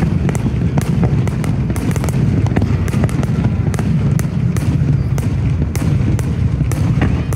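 Aerial firework shells bursting in a dense barrage: a continuous deep rumble with many sharp cracks and pops on top.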